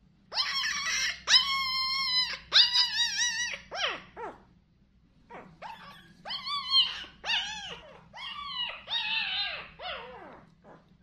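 Young puppy whimpering and crying: a run of about a dozen high-pitched cries, each about half a second to a second long and often falling in pitch at the end, with a short break about four seconds in.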